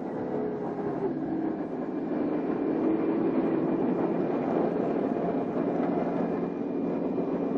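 Steady engine drone with a noisy rumble, with a faint tone that sinks slightly about a second in, as of a truck engine running while it climbs loading ramps.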